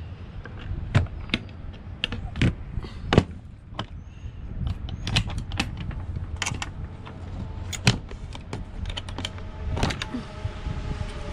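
A scatter of irregular sharp clicks, taps and knocks, about twenty of them, some with a dull thump beneath.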